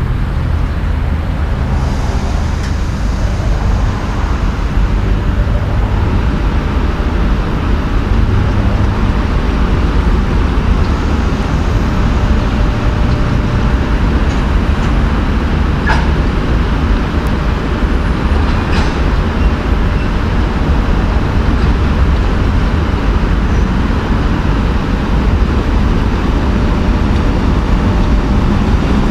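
EP1M AC electric locomotive pulling a passenger train away at low speed, running with a steady loud, deep drone and a faint steady whine, with two short clicks midway.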